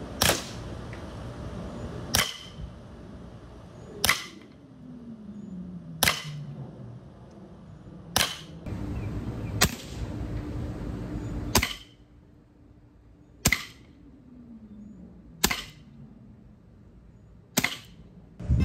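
Evanix Viper .30-caliber semi-automatic PCP air pistol, fitted with its moderator, firing pellets: about ten sharp shots, roughly two seconds apart.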